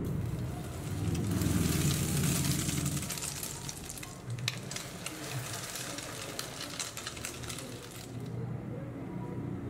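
Egg-soaked bread frying in hot fat in a nonstick pan for French toast: the sizzle swells loud about a second in as a slice goes into the pan. It then settles into crackling and popping, and eases to a softer sizzle near the end.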